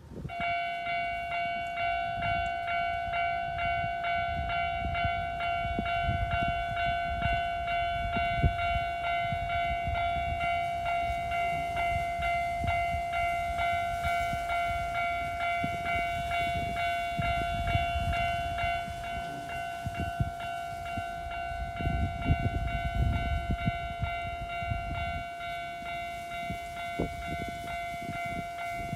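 A Japanese railway level-crossing warning bell ringing continuously, heard over the low rumble of a train passing, loudest about 22 seconds in. The bell starts suddenly at the outset.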